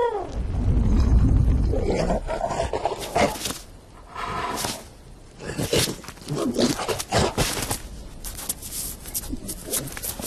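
Cartoon sound effects: a loud, low lion roar in the first two seconds, then a run of scattered knocks, scuffles and short animal cries.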